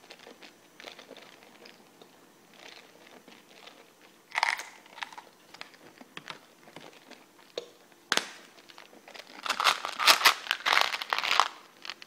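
Plastic wrappers of Warheads sour candies crinkling and tearing as they are unwrapped by hand: scattered crackles, a louder burst about four seconds in, and the loudest, densest crinkling in the last couple of seconds.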